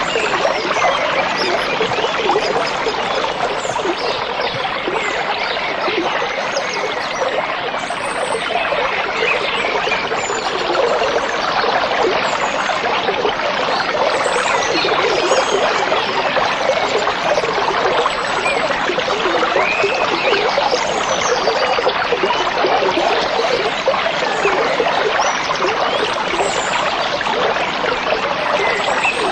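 A stream running and babbling steadily over stones, with faint bird chirps now and then above the water.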